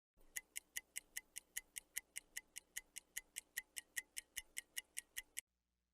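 Clock-style mechanical ticking, about five even, crisp ticks a second, which stops abruptly near the end.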